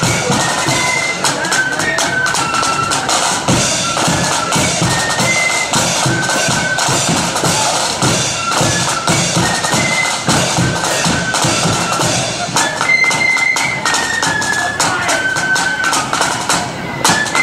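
Marching flute band playing a tune: flutes carry the melody over steady snare drums and a bass drum beat.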